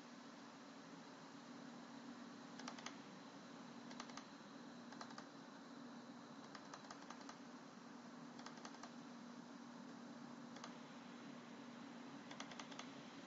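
Faint computer keyboard typing: short runs of a few keystrokes every second or two, over a low steady hum.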